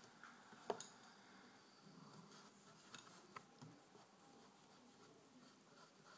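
Near silence with faint rubbing of a hand and pencil on drawing paper, broken by one sharp click about a second in, a pencil set down on the table, and two lighter taps around three seconds in.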